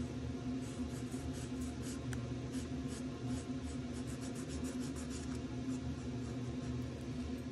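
Marker tip scratching on sketchbook paper in many short, quick strokes while colouring in, over a steady low hum.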